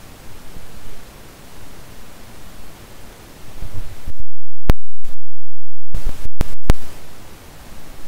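Steady hiss of recording noise. About four seconds in it cuts off abruptly, leaving silence broken by several short, sharp clicks.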